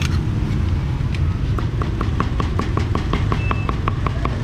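Steady low rumble of street traffic. About one and a half seconds in, a rapid, even clicking starts, about six or seven clicks a second.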